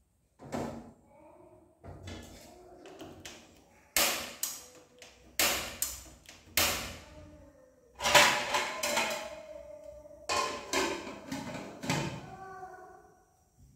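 Dishes and metal pots clattering at a kitchen sink during washing-up: a series of sharp knocks and clanks, some ringing briefly, the loudest about eight seconds in.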